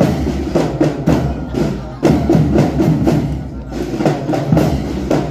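Children's marching drum band playing: drums and other percussion strike a steady march rhythm under a melody.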